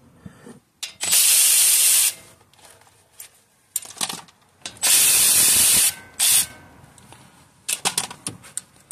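Two one-second hisses of an aerosol lubricant spray being applied to a bolt, with short runs of ratchet wrench clicks in between and near the end.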